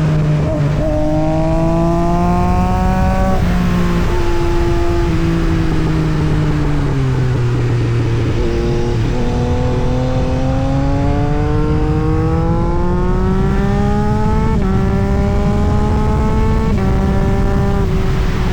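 Yamaha MT-09 SP's inline-three engine breathing through an aftermarket Austin Racing exhaust, under way: the engine note climbs and drops in steps as it shifts up through the gears, sinks as the bike slows for a few seconds, then climbs through the gears again.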